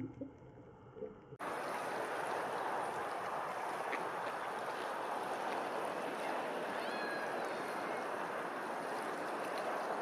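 Steady rushing wash of water on a lake, starting suddenly about a second and a half in after a short stretch of quieter, low underwater-sounding ambience. A few faint short bird calls sound in the second half.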